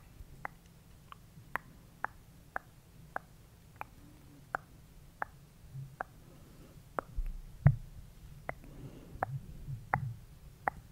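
Hands rubbing and squeezing a furry microphone windscreen, giving a muffled low rustle that grows busier in the second half, with one heavier thump about three quarters of the way in. Under it runs a regular sharp clicking, about two clicks a second, slowing slightly.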